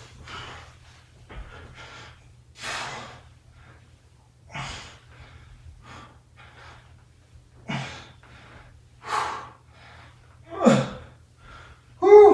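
A man breathing hard through squats and reverse crunches: sharp, forceful exhales about every one and a half to two seconds. Two of them near the end are voiced, with a falling pitch.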